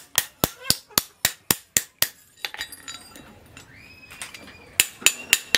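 Hand hammer striking a steel chisel blank on a steel post anvil, sharp ringing blows at about four a second for two seconds. After a pause with only light taps, a short run of four blows comes near the end.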